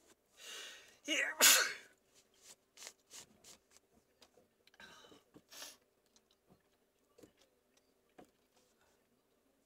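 A person sneezing hard once: a breathy intake, then a loud, sharp sneeze burst about a second and a half in. It is followed by a string of short, quiet clicks and two smaller breathy bursts a few seconds later.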